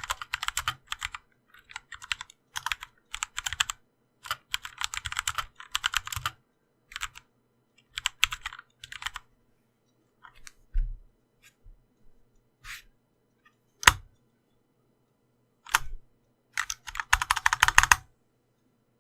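Typing on a Glorious GMMK Compact mechanical keyboard fitted with Kailh Pro Purple switches: bursts of rapid keystrokes broken by short pauses, a few single strokes in the middle, and a last fast burst near the end. A dull low thump comes about eleven seconds in.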